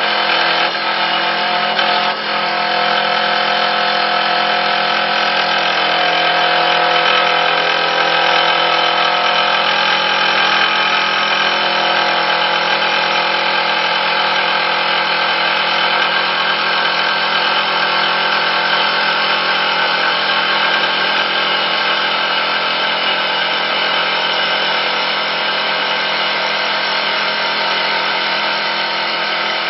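Automatic CNC wood turning lathe running and cutting a spinning wooden spindle: a loud, steady machine sound made of several constant tones over the noise of the cut.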